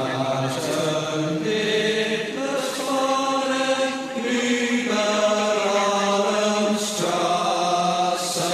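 Soundtrack of vocal chanting: long held sung notes that shift pitch every second or two.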